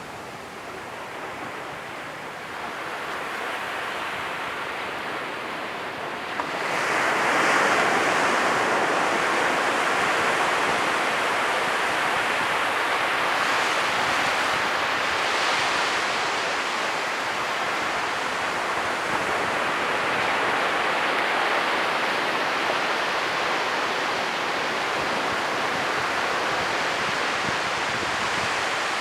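Ocean waves breaking on the shore: a steady rush of surf that swells into a louder crash about six and a half seconds in and stays loud afterwards.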